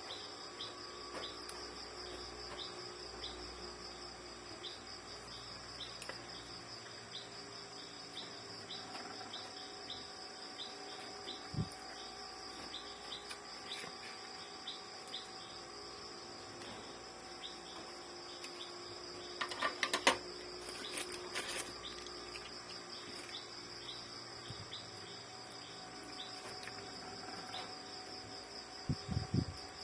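Steady high-pitched chirring of insects, with a short cluster of small clicks and taps about twenty seconds in.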